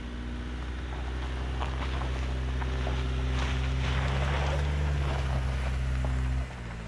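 2020 Toyota RAV4 TRD Off-Road's 2.5-litre four-cylinder engine running steadily and growing slightly louder as the SUV pulls up a steep gravel climb and passes close by, with tyres crunching over loose stones. The sound cuts off abruptly near the end.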